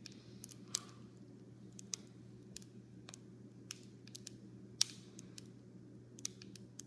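Wack-a-Pack self-inflating foil balloon packets crinkling as they swell: faint, irregular sharp clicks and crackles a few times a second, with one louder click a little before five seconds in.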